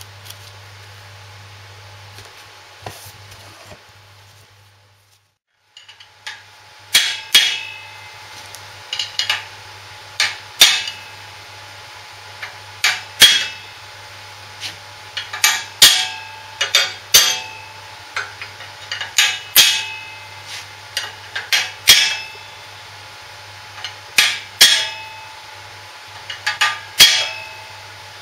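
A ball-pein hammer strikes a steel drift to gently tap a new ball bearing's race into the crank housing, seating it evenly. The metal-on-metal taps ring and come at an irregular pace of about one or two a second. They begin after several seconds of quieter handling.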